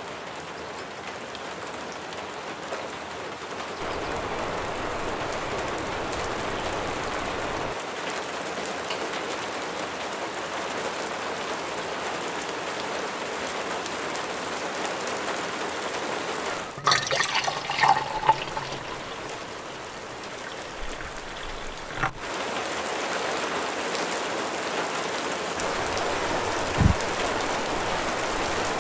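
Steady rain, falling hard. About two-thirds of the way through it is broken by a few seconds of short, higher-pitched chirping sounds, and a single dull knock comes near the end.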